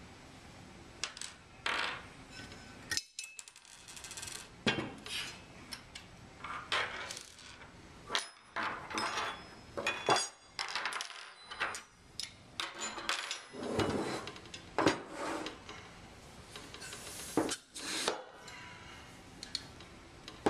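Irregular metal clinks, knocks and scrapes as loose bolts and stainless steel parts of a powder sampler are handled and set down on a tabletop during disassembly.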